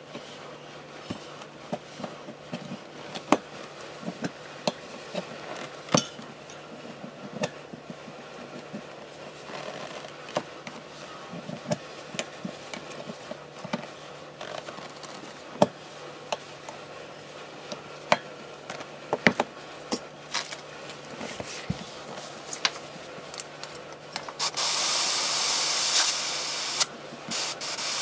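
Scattered clicks and taps of metal tools on a spoked motorcycle wheel and tyre, then, about 24 seconds in, a loud hiss of air for about three seconds: air rushing out of the inner tube through its valve as the tube is deflated.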